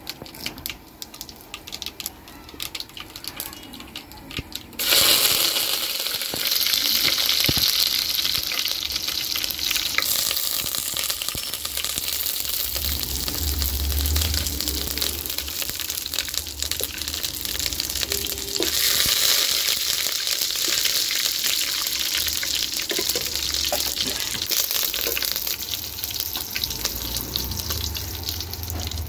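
Hot oil with mustard seeds crackling in an aluminium pot, then a sudden loud sizzle about five seconds in as curry leaves go into the oil, which keeps sizzling steadily, rising again later on.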